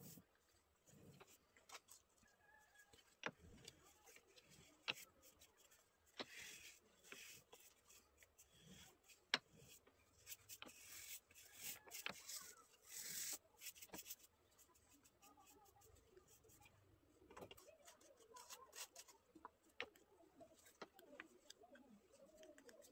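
Faint strokes of a paintbrush spreading finish over a turned wooden vase, soft bristle swishes in a few runs, with scattered light clicks.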